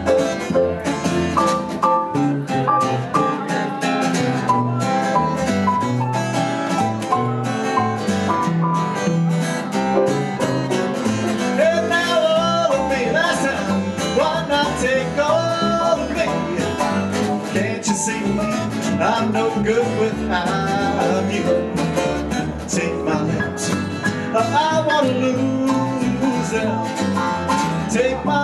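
Live acoustic band music: upright double bass plucked under a strummed acoustic guitar, with a man singing lead from about the middle on.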